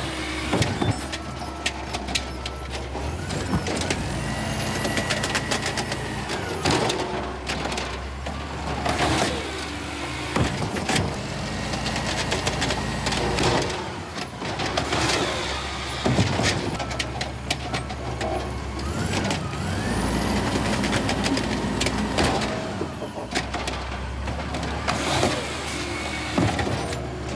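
Automated side-loader garbage truck's hydraulic arm grabbing, lifting and dumping wheeled trash carts. The engine revs up with a rising whine three times as it drives the arm, among clunks and bangs from the carts and the arm.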